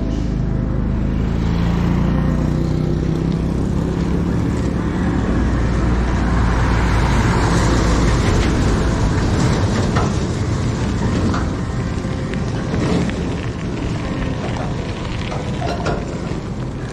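A large truck's diesel engine and tyres as it drives past the bicycles. The sound builds to its loudest about eight seconds in, then falls away.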